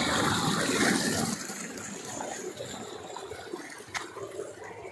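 Water gushing from a tube-well pump's outlet into a brick irrigation channel, loud for the first second or so, then fainter.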